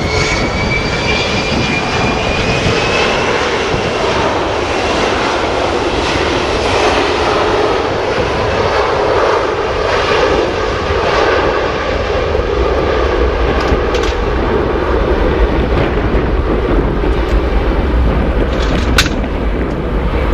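Gulfstream G450's two Rolls-Royce Tay 611-8C turbofans at takeoff power on the takeoff roll. A high whine rises over the first few seconds, then gives way to steady, loud jet noise with a low rumble that grows in the second half as the jet accelerates away. There is one brief click near the end.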